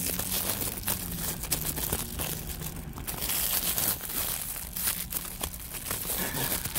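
Close, steady crinkling and rustling handling noise with many small knocks, from a hand working the phone close to its microphone and paper food wrapping being handled.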